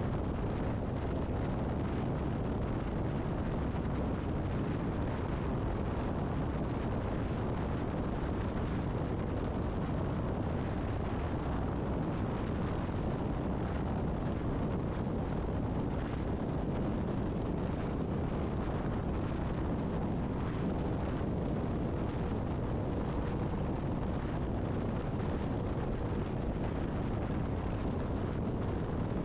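Steady wind rumble on the microphone mixed with tyre and road noise from a vehicle travelling at highway speed. The noise is deepest in the low end and does not change.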